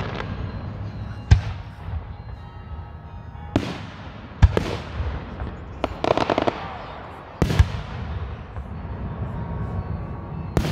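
Aerial firework shells bursting: about seven loud bangs at irregular gaps, with low rumble carrying on between them. A quick run of crackling pops comes about six seconds in.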